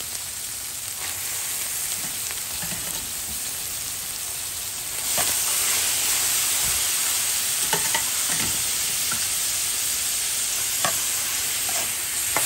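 Minced meat sizzling as it fries in oil in a steel kadhai; about five seconds in the sizzle grows louder as boiled chana dal goes into the pan. A metal spatula scrapes and clicks against the pan now and then as it is stirred.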